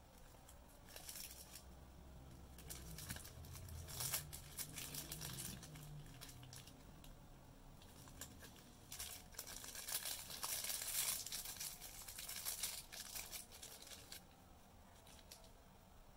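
Thin plastic sauce bag crinkling and rustling in irregular bursts as fingers handle it and work it open, busiest in the middle stretch.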